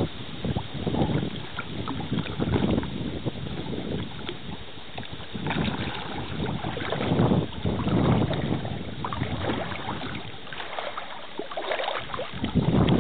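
Water splashing and sloshing in irregular surges as a dog swims and paddles through pond water, towing a floating log in its mouth.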